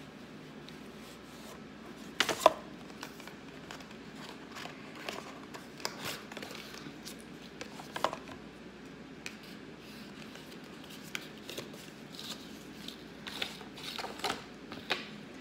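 Cardboard watch box and packaging being handled and opened: scattered clicks, taps and rustles. The loudest is a cluster of sharp clicks about two seconds in, with more near eight seconds and a run of them near the end.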